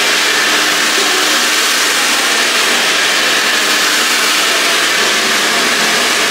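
Salon hair dryer blowing steadily close by, an even rushing whoosh with a faint motor hum under it.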